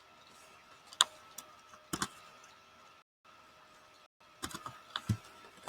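A few short, sharp clicks and taps: one about a second in, another a second later, and a quick cluster near the end, over a faint steady electrical hum.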